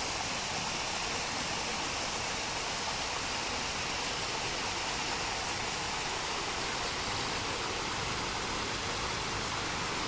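Small artificial waterfall splashing steadily over rocks into a pool.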